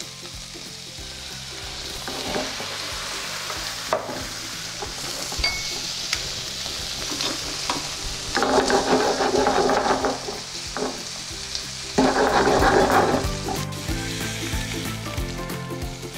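Garlic, shallots and crushed peppercorns sizzling in butter and olive oil in a frying pan as brandy is added for a flambé. The sizzling swells twice, about eight and twelve seconds in, each surge lasting a second or two.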